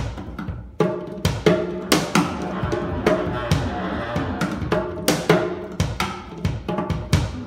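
Cajon slapped and thumped by hand in an irregular, improvised pattern of sharp strikes, over sustained low notes from a contralto clarinet.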